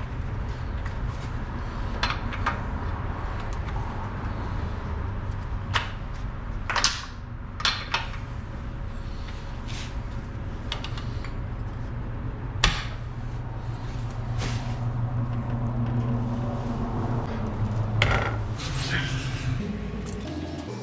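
Metal hand tools clinking and knocking now and then, about seven sharp strikes over a steady low hum, as a stripped nut is worked on at the car's wheel and cheap wheel spacer.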